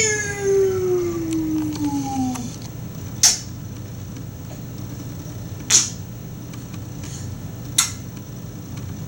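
Hiccups: three short, sharp hiccups evenly spaced a little over two seconds apart. At the start a drawn-out vocal sound falls slowly in pitch.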